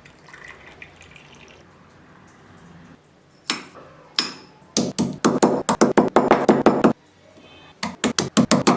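Hard knocks of a kitchen tool on a hard surface: two single knocks, then two fast runs at about six knocks a second with a short pause between them.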